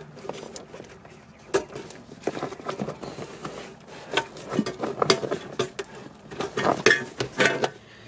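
Irregular clicks and light rattles of plastic and metal as a Honda ECU's wiring connector is worked loose and the metal ECU case is shifted.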